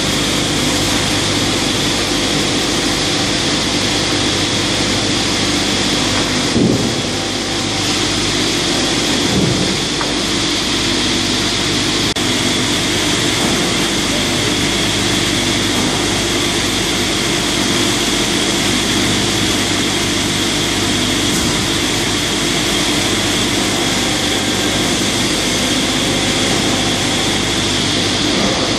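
Wravor 1200 Profi NB sawmill cutting line running: band saw, motors and conveyors make a steady loud drone with a high whine. A brief knock about six and a half seconds in and another about three seconds later.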